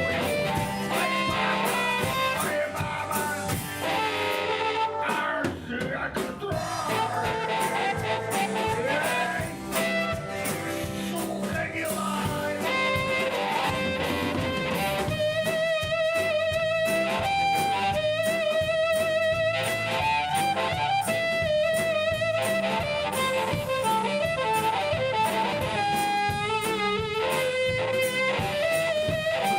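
Live band playing blues-rock, with guitar and drums. From about halfway through, a wavering, held lead melody rises above the band.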